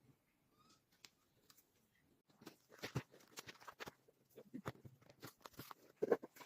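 Board game components being handled: a run of irregular clicks and taps, starting about two and a half seconds in, with the loudest knock near the end.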